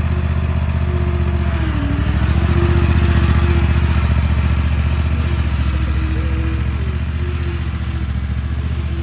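Zero-turn riding mower's engine running steadily as the mower drives off, swelling a little about two seconds in and then slowly fading as it pulls away.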